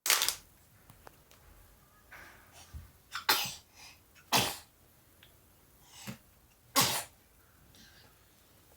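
A run of four short, sharp sneezes, with fainter quick breaths or sniffs between them, from a cold.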